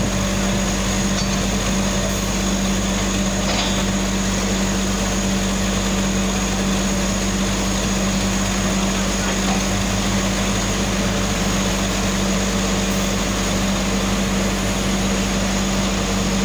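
Truck-mounted borehole drilling rig running: a steady engine drone with a strong, constant low hum that neither rises nor falls.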